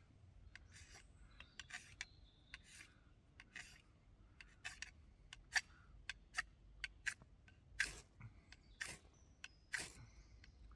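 Ferro rod scraped with a striker, a long run of short sharp scrapes, with three longer, louder strokes near the end. The strikes throw sparks into dry leaves to light a wood fire.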